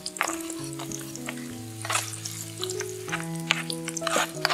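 Chopped garlic sizzling and crackling in hot oil in a small metal frying pan. A small metal spoon stirs and clicks against the pan, with the clicks coming thicker near the end.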